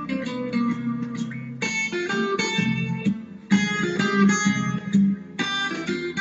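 Instrumental background music led by a plucked guitar, playing a steady run of notes.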